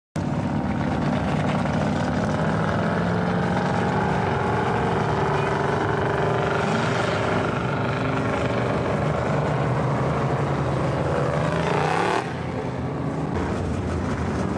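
Dirt-track stock car V8 engines running on the track, with one engine revving up, its pitch rising about eleven seconds in. The sound cuts off suddenly at about twelve seconds and gives way to quieter engine noise.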